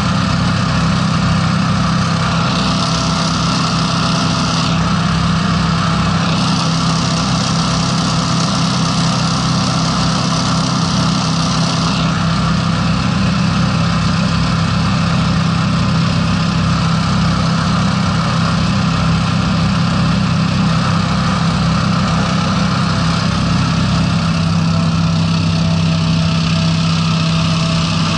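Hovercraft's Honda 690 V-twin engines running steadily at cruising speed, driving a caged propeller, with a hiss of air and water spray that swells for stretches in the first half. The engine note shifts lower near the end as the craft slows.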